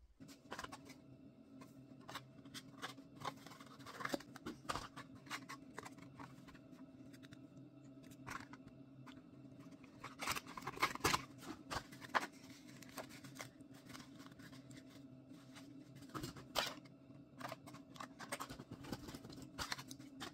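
Hands handling small cardboard boxes and paper packets on a table: scattered clicks, taps and crinkles of card and packaging, over a steady low hum.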